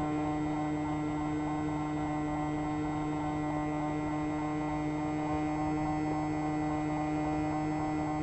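Hobbyking Cloud Surfer's stock electric motor and 8x4 propeller running at steady cruise throttle, heard from a camera on the plane: a steady, even-pitched hum.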